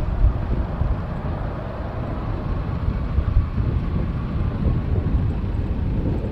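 Airbus A319 airliner's twin jet engines at taxi power as it taxis past: a steady low rumble with a faint whine above it.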